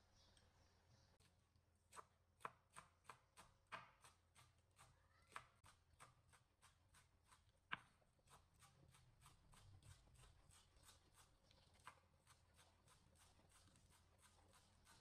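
Kitchen knife chopping green onions on a wooden cutting board: a steady run of faint knocks of the blade on the board, about three a second, starting a second or so in.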